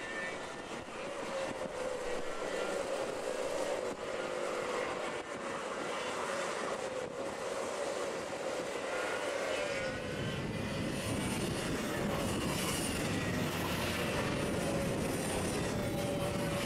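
Several two-stroke racing kart engines running hard as the field of karts passes, their whining tones gliding up and down in pitch, with a deeper rumble joining about ten seconds in.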